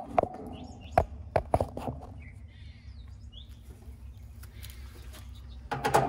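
Birds chirping faintly over a steady low hum. Several sharp clicks and knocks come in the first two seconds and again near the end.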